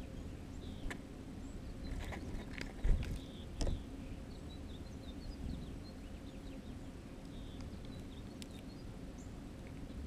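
Small songbirds chipping and twittering in short, faint calls scattered throughout, over a low rumble, with a few sharp knocks about one, three and three and a half seconds in, the one near three seconds the loudest.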